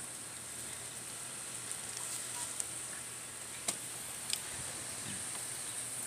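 Steady high-pitched insect chirring in the background, with a few faint clicks and rustles from a hand moving under a nesting pigeon in its bowl, around the middle.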